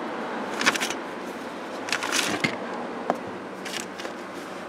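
A few short clicks and scrapes of plastic glove box parts being handled and fitted, over a steady background hiss.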